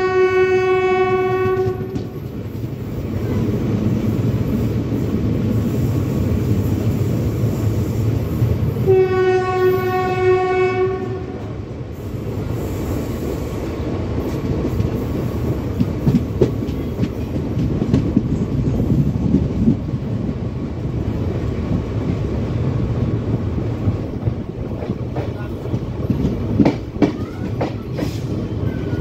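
A train running on the rails with a steady rumble, its horn sounding twice for about two seconds each, at the start and about nine seconds in. Wheels click over rail joints now and then in the second half.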